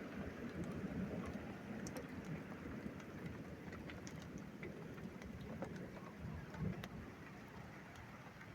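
Rain falling during a thunderstorm, with scattered drop ticks over a low rumble of distant thunder that slowly fades.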